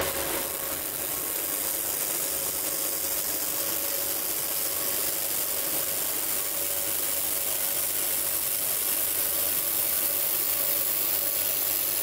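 Handheld laser welder running a weld bead on stainless steel, with the beam wobbling at 50 Hz: a steady hissing crackle from the weld and its spatter, with a faint steady hum underneath.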